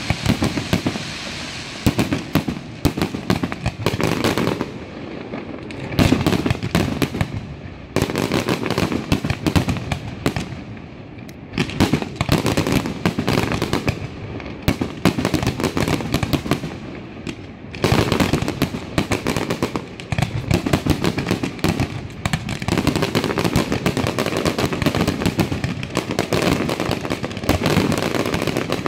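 Fireworks display in its closing barrage: aerial shells and ground fountains going off in rapid, nearly continuous bangs and crackling. Short lulls come every few seconds, each followed by a fresh salvo, about 6, 12 and 18 seconds in.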